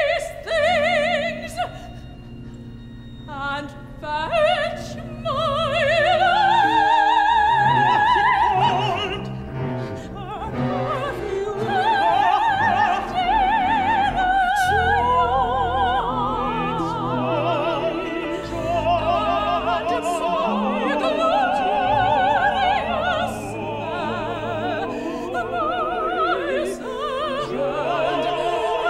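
A woman singing an operatic line with wide vibrato over a chamber ensemble, in sustained phrases that climb high about eight seconds in. Short, sharp instrumental notes punctuate the opening seconds.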